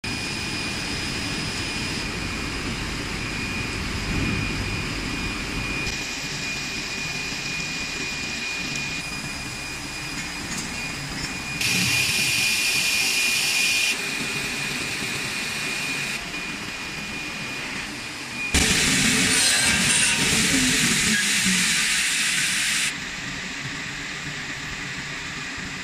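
Steady machinery noise of a running plastic foam board extrusion line: a hiss with a thin high whine over a low hum. Its level and tone jump abruptly every few seconds, with a louder stretch about halfway through and a longer, louder one about three-quarters of the way in.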